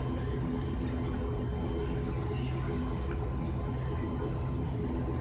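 Steady low drone of an airliner's engines heard from inside the passenger cabin as the plane rolls slowly on the ground, with a faint steady whine above it.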